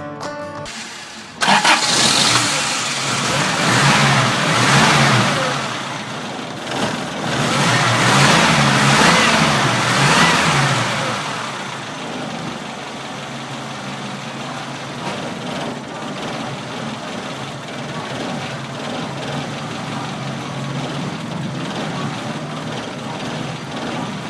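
Toyota 3A four-cylinder petrol engine starting about a second in, freshly fitted with a new timing belt and tensioner. It is revved up and down twice, then settles to a steady idle.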